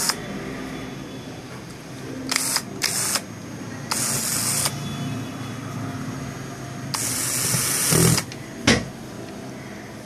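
Handling noise as a smartphone's plastic housing is pressed and worked by hand: a few short scraping, rustling bursts and a sharp click near the end.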